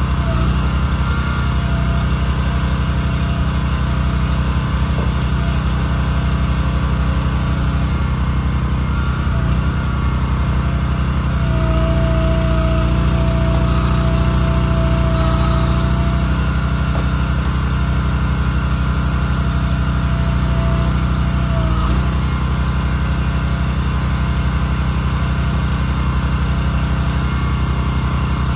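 Wolfe Ridge log splitter's small gas engine running steadily, with the tractor that turns the firewood conveyor running alongside. A higher whine rides over the engines for about ten seconds in the middle.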